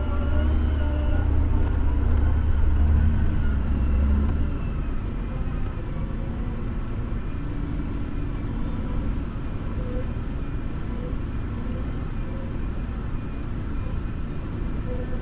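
Farm tractor engine running steadily, heard from inside the cab, with a heavy low drone that eases off about four and a half seconds in.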